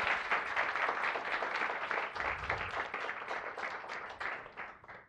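Audience applauding, a dense patter of many hands clapping that grows fainter near the end.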